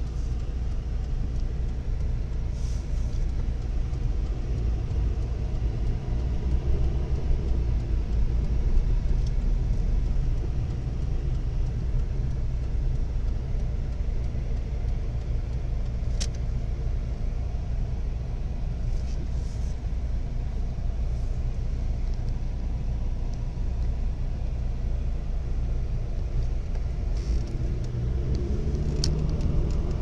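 Steady low rumble of a car's engine and road noise, heard from inside the cabin, with a couple of short sharp ticks.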